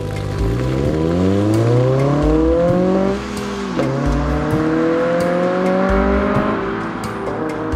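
2006 Honda Civic Si's 2.0-litre four-cylinder engine, breathing through a Greddy Evo2 exhaust and Injen cold air intake, accelerating hard from a standstill. The note climbs steadily, drops at an upshift about three seconds in, climbs again, and drops at another shift near the end. Background music with a steady beat plays underneath.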